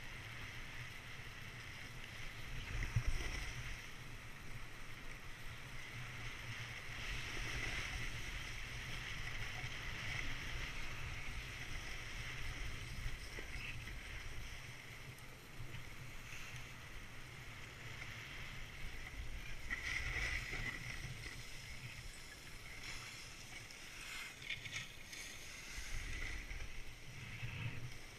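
Skis sliding and carving down groomed snow: a continuous swishing scrape over a low rumble, swelling and easing with each turn, with a louder bump about three seconds in.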